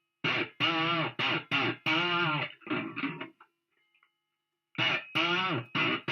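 Electric guitar, a Fender Stratocaster, played through distortion and effects: a quick run of short, choppy notes with bending pitch, a break of about a second and a half, then more notes.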